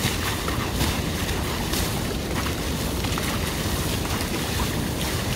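Water sloshing and splashing around a Mitsubishi Pajero Full 4x4 as it wades slowly through deep water, a steady rushing wash with a few small splashes.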